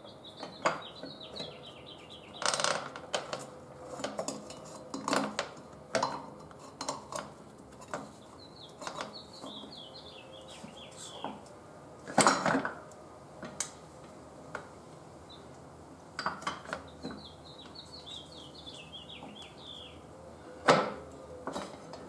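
Scattered metallic clinks and knocks as a Yamaha FZ-09 rear wheel, its axle spacers and brake caliper bracket are worked into the swingarm, the loudest about two and a half seconds in, about twelve seconds in and near the end. A bird chirps in short runs of quick notes in the background.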